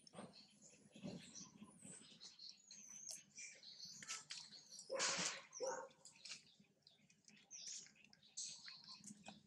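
Faint, scattered high-pitched chirps and squeaks from animals, with a brief louder noisy burst about five seconds in.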